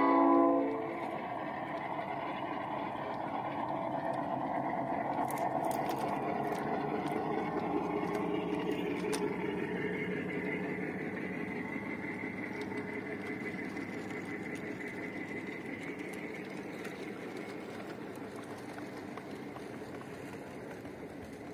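A 5-inch gauge miniature train rolling past on its track: the locomotive's horn cuts off about half a second in, then the wheels run steadily on the rails. The sound builds and then slowly fades as the train moves away.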